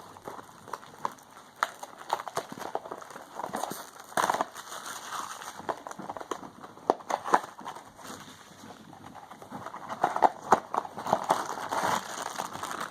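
Blind-box toy packaging being opened by hand: irregular crackling, clicking and crinkling of the box and its wrapper, busiest about four seconds in and again near the end.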